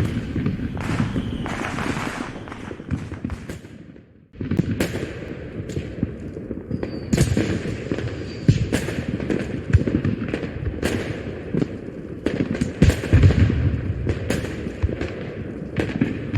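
Dubbed-in fireworks sound effect: aerial fireworks bursting, with many bangs and crackles in quick, irregular succession. The sound drops away briefly about four seconds in, then resumes.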